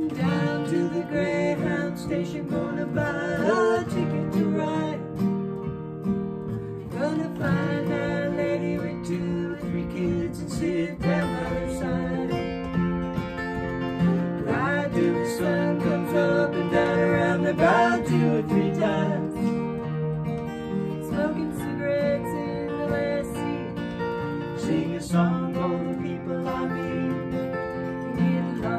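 Instrumental break in a country-folk song: acoustic guitar strumming chords under a lead melody line with bending, sliding notes.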